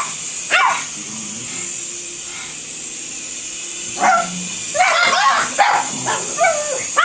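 Pugs barking and yipping: a single short yelp about half a second in, then a quick run of barks and yips from about four seconds on.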